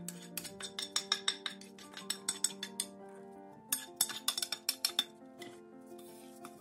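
Utensils clinking rapidly against a bowl as cooked mushrooms are tossed into a shredded-vegetable salad, in two runs of clinks a second or so apart, over background music.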